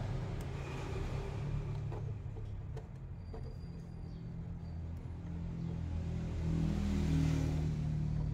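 An engine running with a steady low hum, its pitch rising and getting louder about two-thirds of the way in, with a few faint clicks.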